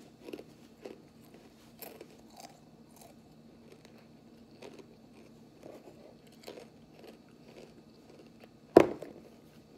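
Mouthful of Takis, rolled tortilla chips coated in chocolate syrup, being crunched and chewed: crisp crunches come quickly at first, then thin out. Near the end there is a single loud knock.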